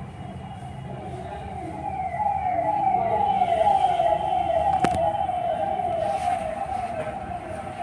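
Siren with a fast repeating rising wail, about three sweeps a second, that swells louder and then fades as if passing by. One sharp click about five seconds in.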